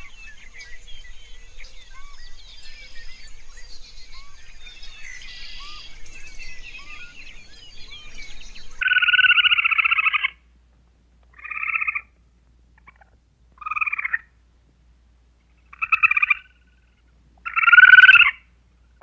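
A red squirrel's chattering trill: five loud, rapidly pulsed bursts, the first the longest, with short silences between them. Before it, for about nine seconds, a quieter busy scatter of small chirps and calls.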